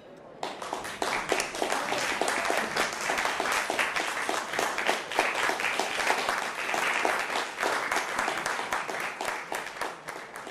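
Audience applauding: dense clapping that starts about half a second in and dies away near the end.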